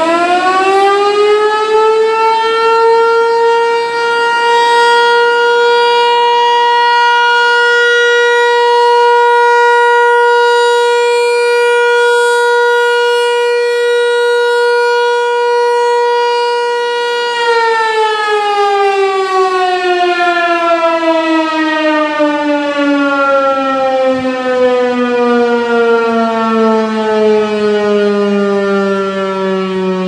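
American Signal T-128 rotating electromechanical tornado siren sounding its steady alert signal in a weekly test. It finishes winding up to full pitch in the first couple of seconds and holds one steady tone. About 17 seconds in it begins a long, slow wind-down, the pitch falling gradually and the sound swelling and fading a little as the horn turns.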